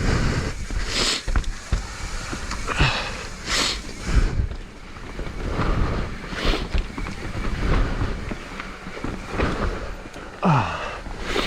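Mountain bike running down a rough trail: steady tyre and frame rumble with noise on the helmet camera's microphone. Short bursts of hard breathing come every few seconds, and a brief falling sound near the end.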